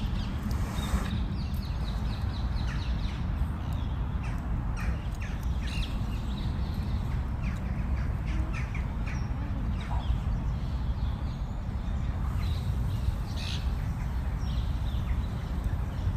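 Outdoor ambience: a steady low rumble with many short, sharp high-pitched sounds scattered irregularly through it.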